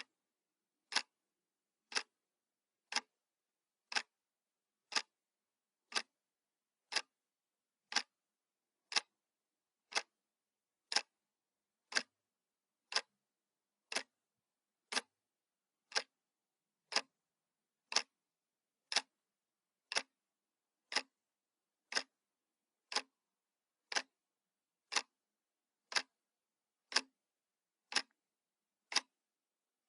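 Clock ticking sound effect, one sharp tick each second at a steady pace.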